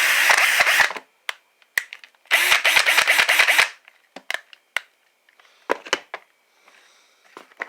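DeWalt cordless drill run in two short bursts: the first stops about a second in, the second runs for about a second and a half. It is followed by a few light plastic clicks as the drill is handled.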